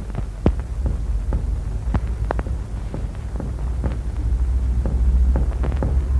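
Chest percussion demonstration recording: repeated finger taps on the chest wall, roughly two a second, over a steady low hum. This is the percussion note above the level of a pleural effusion, which takes on a tympanic tinge.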